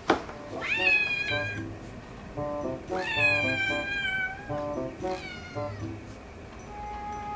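Exotic Shorthair–Siberian mix kitten meowing three times, a long high call in the middle, begging for wet food held out of reach. A sharp click right at the start.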